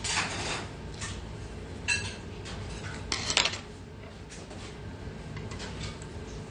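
A metal spoon clinking and scraping against a thin metal ramen pot while eating. There is one sharp ringing clink about two seconds in and a louder cluster of clinks around three and a half seconds in.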